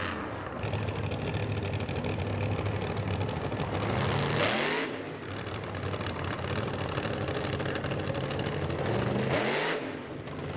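Supercharged funny car engine idling, with two sharp throttle blips, one about halfway through and one near the end.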